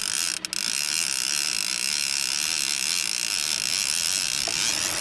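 Fishing reel being cranked steadily to bring in a hooked fish, a continuous mechanical whir with a high whine.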